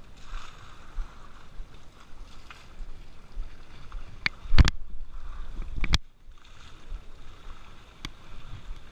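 River water sloshing and splashing as buckets are scooped through the shallows and thrown over an elephant. A few sharp knocks come about four seconds in, followed by a louder burst of splashing that stops suddenly at about six seconds, and one more knock near the end.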